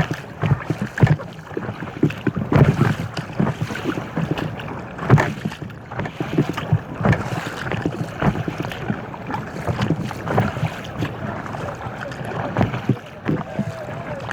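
Water splashing and slapping around an inflatable kayak on the move, in irregular bursts, with wind on the microphone.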